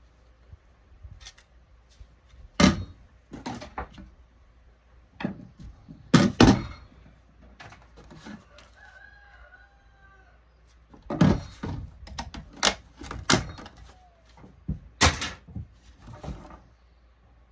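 Irregular sharp cracks, clicks and knocks of hand tools taking apart a touchscreen control panel, in clusters with short gaps between. A rooster crows faintly about halfway through.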